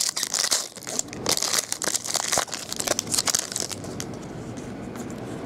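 Foil trading-card pack wrapper being torn open and crinkled by hand: a dense run of sharp crackles for about the first three and a half seconds, then fainter rustling.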